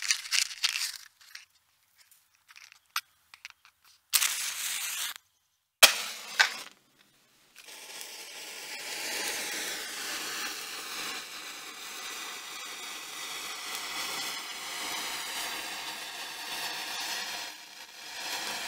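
Fireworks: scattered sharp crackles and pops, a short burst of hiss about four seconds in and a sharp bang near six seconds. From about eight seconds on comes a steady hissing crackle.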